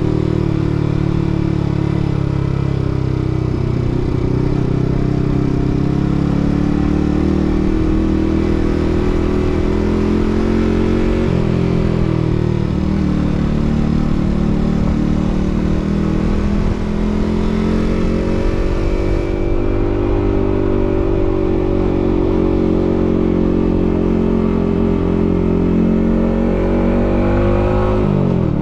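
Yamaha MT-15 motorcycle's single-cylinder engine running steadily while riding down a steep road, its pitch drifting gently up and down with the throttle. A quick drop and rise in engine pitch near the end.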